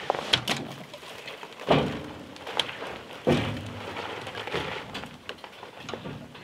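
A few dull thuds, the heavier two about two and three seconds in, with scattered light knocks and clicks between them.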